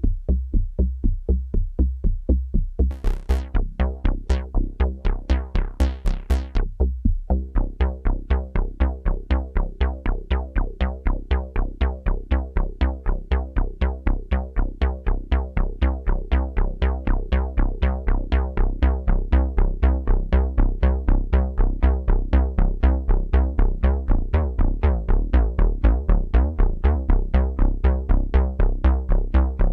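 Roland Juno-106 analog synthesizer playing a preset patch being modified live: a steady low pulse about four times a second, with a sustained chord coming in about two and a half seconds in and brief bright filter sweeps soon after.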